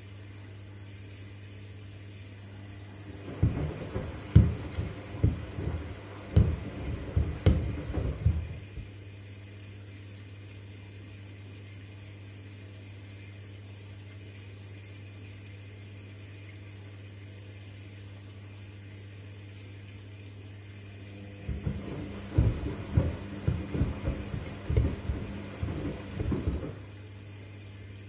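Front-loading washing machine in its wash phase, tumbling a load of shoes in water. There are two spells of about five seconds each of sloshing water, with the shoes knocking against the drum, separated by a long pause. A steady low hum runs under it throughout.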